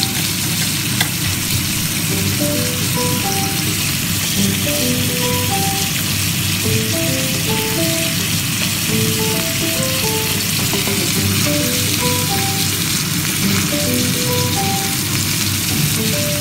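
Beef steaks frying in butter on a hot ridged grill pan: a steady, dense sizzle. A light background melody of short notes plays along with it.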